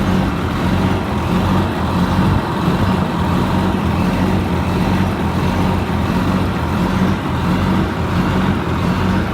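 Cummins QSM11 inline-six diesel engine running steadily at a constant speed, a continuous low hum with no revving.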